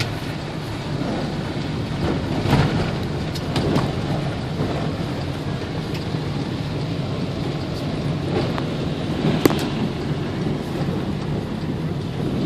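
Heavy rain falling on a moving car, heard inside with steady road noise and a few sharp raindrop-like clicks.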